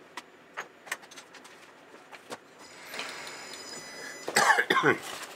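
A person coughing and clearing their throat about four seconds in, the loudest sound here, after a few faint clicks and a rising hiss.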